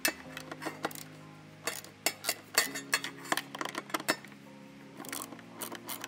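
Hand ratchet with a 10 mm socket undoing the nuts on a shifter housing: a scattering of sharp metallic clicks and clinks, with a quicker run of clicks near the end.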